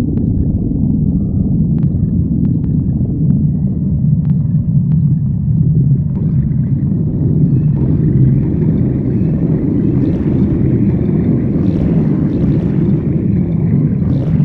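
A person's stomach growling: a continuous low rumble, with a few faint clicks in the first few seconds.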